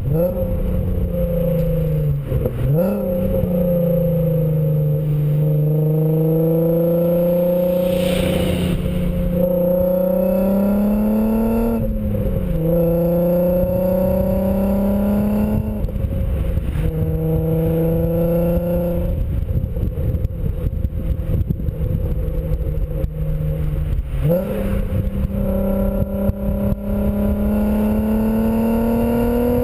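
2004 VW R32's 3.2-litre VR6 heard through a BlueFlame non-resonated cat-back exhaust while driving: the exhaust note climbs slowly in pitch, dips sharply a few times as the revs drop, fades under the road rumble for a few seconds past the middle, and comes back near the end. Steady road and wind noise runs underneath.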